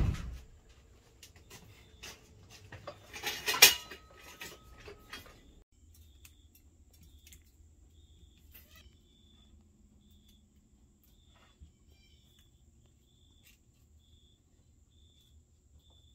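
The tail of a door slam, then metal tools and small parts clattering as they are handled on a workbench, loudest about three to four seconds in and thinning to faint scattered clicks. A faint high chirp repeats about once a second in the background.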